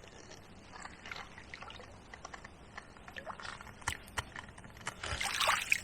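River water splashing and dripping around a landing net holding a barbel being rested at the edge, in small scattered splashes with a louder splash about five seconds in.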